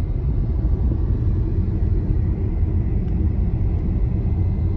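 Steady low rumble of road and tyre noise inside the cabin of a Tesla Model Y electric car driving on a paved road.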